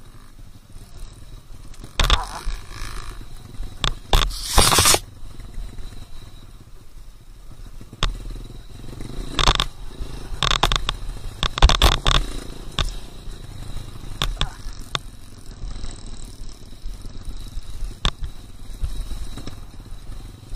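A motorcycle running low and rough under irregular knocks, with several longer noisy bursts between about two and twelve seconds in.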